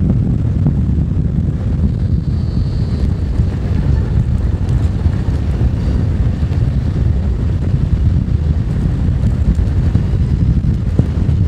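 Wind buffeting the microphone of a camera mounted on a moving Zero FX electric motorcycle, with tyre rumble from the lane and track: a steady low rumble.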